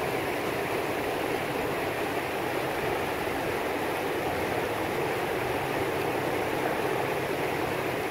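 Steady rushing of floodwater flowing fast down a trail, an even noise with no breaks.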